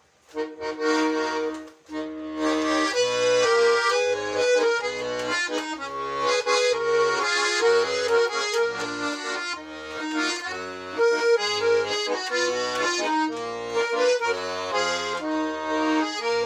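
An accordion plays an instrumental introduction: a melody over a rhythmic bass-and-chord accompaniment, with a short break about two seconds in.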